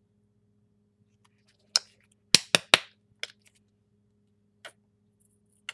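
Sharp plastic clicks and taps from small paint bottles and their caps being handled. A cluster of four loud clicks comes about two seconds in, followed by a few softer scattered ones.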